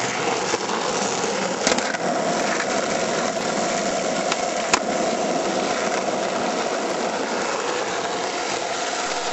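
Skateboard wheels rolling fast on an asphalt road: a steady rolling noise, with a couple of sharp clicks.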